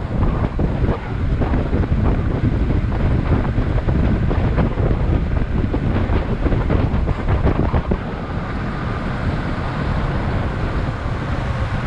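Heavy wind buffeting on the microphone while riding an electric skateboard at about 45–50 km/h, over a low rumble of the board's wheels on asphalt.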